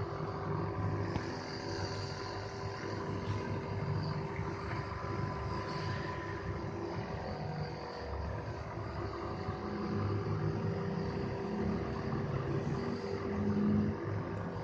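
Nebuliser compressor running with a steady mechanical hum, delivering steam therapy for a cough and cold.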